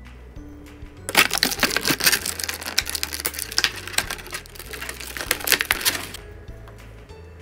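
Thin clear plastic bag crinkling and crackling in the hands for about five seconds, starting about a second in, as small toy accessories are taken out of it. Soft background music plays underneath.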